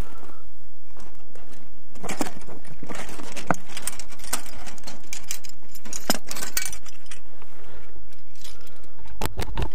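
Irregular clicks, knocks and clinks of a hand-carried camera being handled while walking over rough ground, over a steady low rumble.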